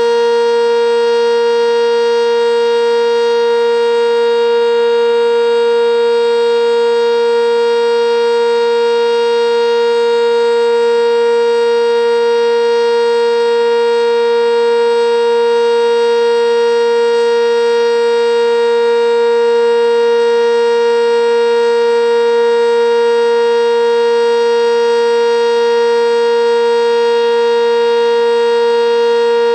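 Sentry 10V outdoor warning siren sounding the alert signal on test: one loud, steady tone held without rising or falling.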